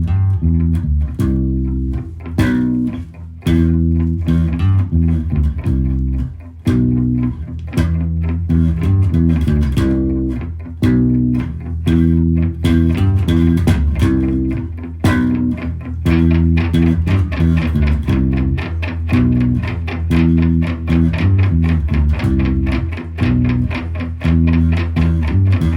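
Background music: a guitar-and-bass track with a steady beat.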